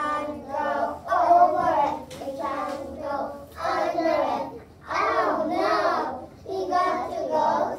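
A group of young children chanting an action rhyme together in unison, in short phrases of about a second with brief gaps between them.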